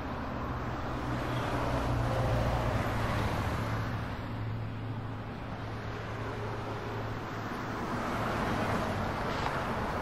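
A sedan's engine running as the car pulls away, picked up by a security camera's microphone along with a steady low hum and hiss.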